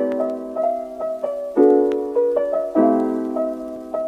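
Intro music: a piano playing soft chords with a simple melody on top, a new chord struck every one to two seconds and fading.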